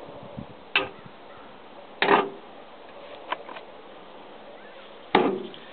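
Four sharp, separate knocks and clicks of hard parts and tools being handled on a chainsaw while it is taken apart for maintenance: the chain being loosened and the sprocket cover and bar being worked loose.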